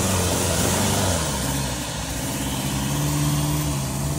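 Off-road 4x4 race vehicle's engine running, its pitch shifting up and down, then holding steady.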